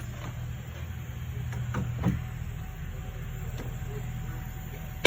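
Clicks of a plastic wiring connector being worked at a CAN bus star connector, ending in a sharp click near the end as one leg is unplugged, over a steady low hum. Unplugging that leg frees the shorted-out CAN network.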